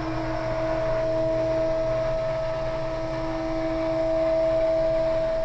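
Electric motor of a powered chiropractic elevation table running with a steady hum as it raises the table, with the patient on it, back up to standing.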